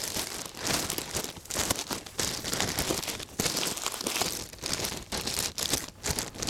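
Clear polythene bag crinkling and dry paddy straw rustling in irregular bursts as a ring of straw is pushed down into the bag and pressed in, packing a layer of an oyster mushroom bed.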